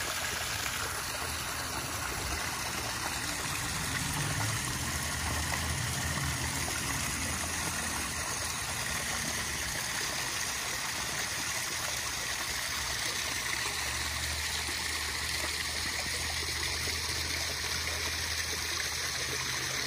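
Water running steadily into a garden koi pond from a hose-fed outlet, splashing at the surface.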